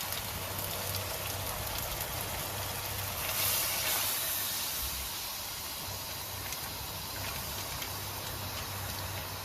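Chicken green curry sizzling and bubbling in the pot on the stove, a steady hiss that swells louder for about a second a few seconds in.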